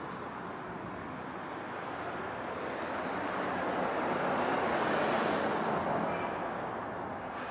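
Steady traffic-like rumble with a passing vehicle's noise swelling to a peak about five seconds in, then fading.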